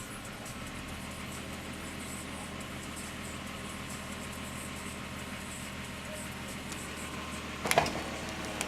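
Toyota Cressida's 7M straight-six engine idling steadily while it warms up, with a brief sharp knock near the end.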